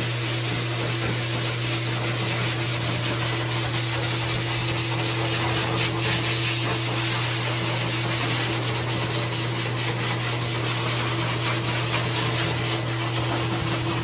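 Pet blow dryer at a dog-wash station running steadily through its hose, a loud even rush of air over a low motor hum with a thin high whine, drying a wet dog's coat.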